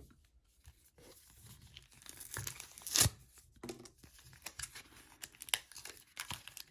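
Foil wrapper of a Pokémon trading card booster pack crinkling and being torn open, with one loud rip about three seconds in, then more crinkling and crackling as the pack is pulled apart.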